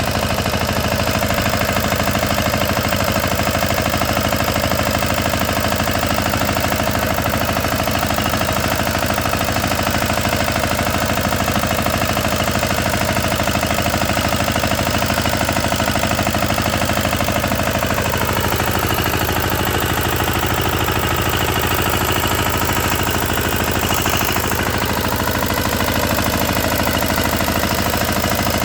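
A machine motor running steadily while milling, its tone shifting about eighteen seconds in.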